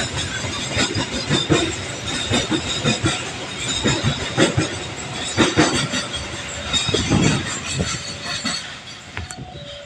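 Container freight train wagons rolling past, wheels clattering irregularly over the rails. The clatter eases off near the end.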